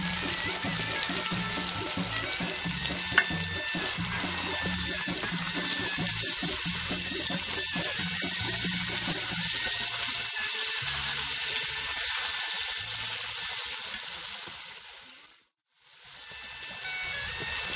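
A wide pan of meat, carrots and diced potatoes sizzling steadily over a wood fire, with background music underneath. The sound dips out briefly near the end.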